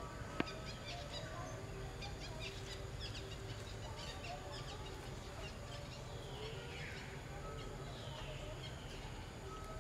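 Birds chirping over a steady low outdoor rumble, with a sharp click about half a second in and a brief hissing sweep a little past the middle.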